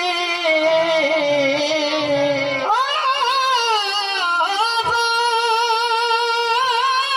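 Qawwali: male singers holding long, wavering notes over harmonium accompaniment. About three seconds in, the voice leaps up from a slowly sinking note to a higher held one.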